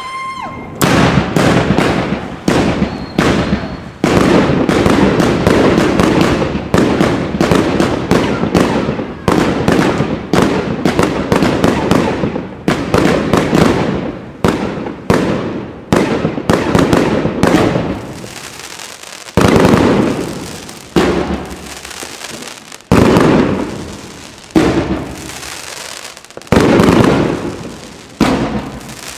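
Aerial fireworks going off in a rapid barrage: dense, overlapping bangs for about the first eighteen seconds, then separate loud bursts roughly a second apart, each trailing away.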